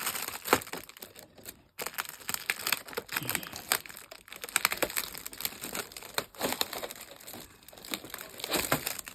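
Packaging crinkling and rustling as it is handled, a dense run of irregular crackles with brief pauses.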